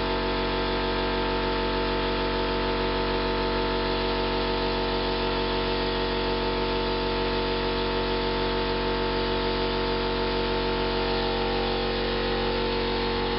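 Steady mechanical hum at a constant pitch, as of a motor or engine running at constant speed.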